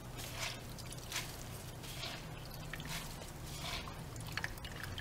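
Shredded green papaya being squeezed and swished by gloved hands in a bowl of water, giving short wet splashes and squishes about once a second as the salt is rinsed out. A low steady hum runs underneath.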